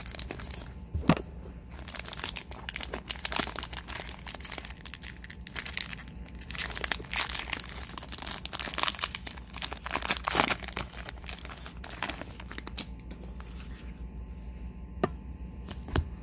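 Wrapper of a Panini Playoff football card fat pack crinkling and tearing as it is ripped open by hand, in irregular bursts. It quiets near the end, leaving a few light clicks.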